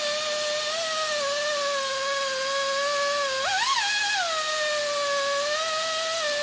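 Central Pneumatic 3/8-inch air belt sander grinding down a steel weld bead, its air motor giving a steady whine over a hiss of air. About halfway through the pitch jumps up for under a second, then drops back.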